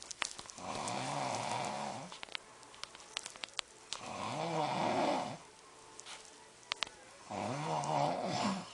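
A man snoring in his sleep: three snores, each a bit over a second long and about three seconds apart, each rising and falling in pitch.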